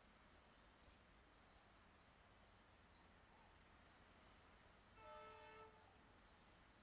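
A distant train horn gives one short blast, under a second long, about five seconds in, over faint background noise with high chirps about twice a second.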